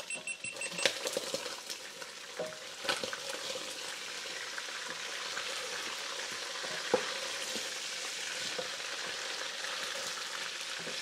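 Food sizzling in a pot on the stove while it is stirred with a wooden spoon. The sizzle builds to a steady hiss over the first couple of seconds. A few knocks of the spoon against the pot come through, the sharpest about seven seconds in.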